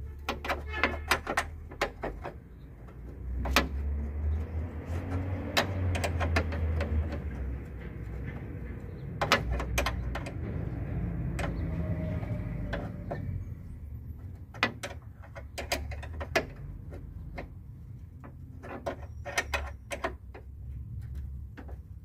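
Wrench working a bolt inside a car door near the latch: bursts of quick metal clicks and taps, coming several times, over a low background rumble.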